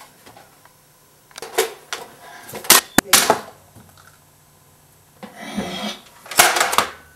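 Toy Nerf dart blasters being primed and fired: a handful of sharp plastic clacks and short bursts of air, one very sharp click about three seconds in, with the loudest burst near the end.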